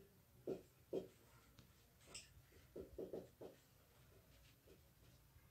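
Faint marker writing on a whiteboard: a few short, scattered strokes.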